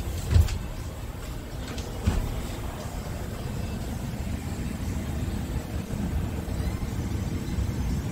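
Scania P280's five-cylinder diesel engine idling steadily, heard as a low rumble from inside the cab. There are two knocks, a loud one about half a second in and a lighter one about two seconds in.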